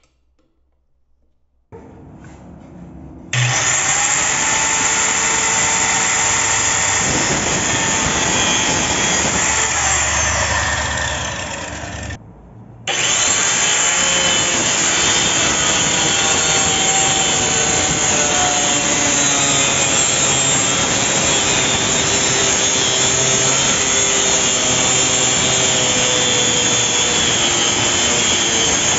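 Compact circular saw running and cutting through a wooden board. The saw starts a couple of seconds in and is loud and steady while cutting, with a short break about twelve seconds in before it carries on cutting.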